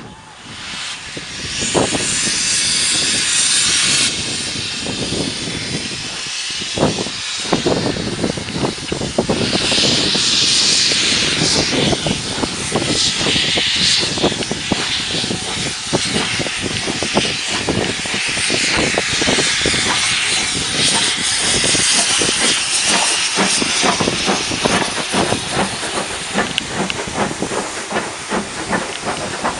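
Two steam locomotives double-heading a train away from a standstill, one of them Bulleid rebuilt Battle of Britain class pacific 34053. There is loud steam hiss from the open cylinder drain cocks, then a run of exhaust beats that comes faster as the train gathers speed.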